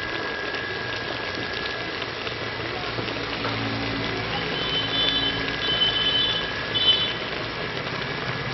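Goat blood and intestine fry simmering in an aluminium pot, a steady bubbling, sizzling hiss. Faint high-pitched sounds come and go in the background around the middle.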